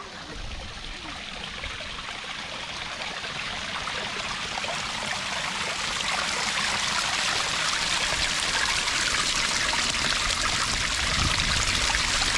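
Small waterfall splashing and trickling over layered rock slabs, a steady rush of water that grows gradually louder.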